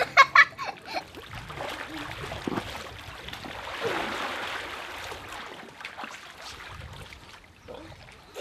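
Pool water sloshing and splashing as people wade through an above-ground pool crammed with filled water balloons, loudest around the middle.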